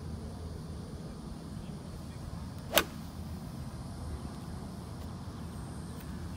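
A golf iron striking a golf ball: one sharp click about three seconds in, over a steady low background rumble.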